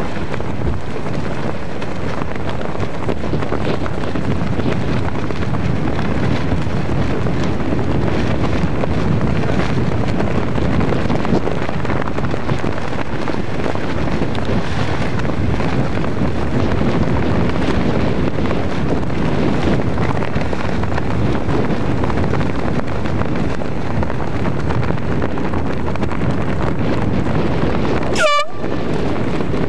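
Steady wind noise on the microphone out on the open water, a low rushing that stays even throughout. Near the end the sound drops out for an instant and a brief high tone cuts in.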